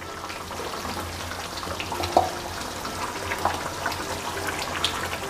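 Chicken curry being spooned out of the pot for serving: thick gravy sloshing and pouring, with a few sharp clinks of the spoon against the vessel, the loudest about two seconds in.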